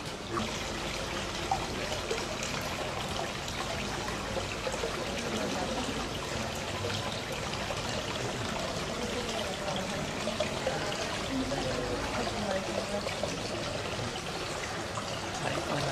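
Water trickling and pouring steadily, with faint voices underneath.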